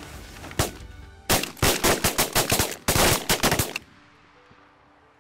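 A volley of shotgun fire from several goose hunters shooting together: one shot about half a second in, then a rapid string of many overlapping shots for about two and a half seconds that stops abruptly.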